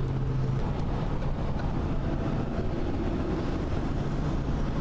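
Steady road and engine noise heard from inside a car driving at highway speed on a wet road, with a low steady hum that stops about half a second in.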